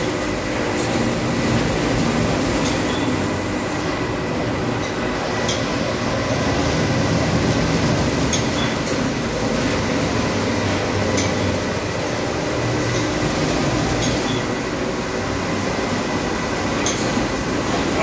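Maxis automatic carpet washing machine running, its row of rotating brush discs scrubbing a foamy carpet. It makes a steady mechanical drone with a faint high whine, and a sharp click comes roughly every three seconds.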